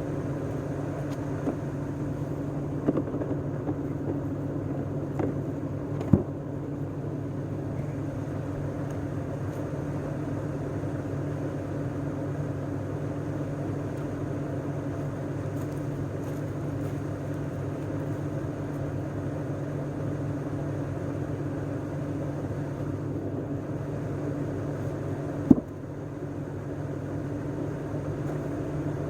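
A vehicle engine running steadily with an even, low hum. A few light clicks come in the first six seconds, and one sharp knock comes about 25 seconds in.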